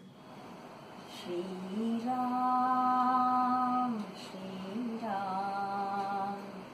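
A woman hums long wordless held notes: the first steps up in pitch and holds for about two seconds, the second is lower and held for about a second and a half. This is the opening of the Hindu devotional bhajan before the words begin. There is a short click right at the start.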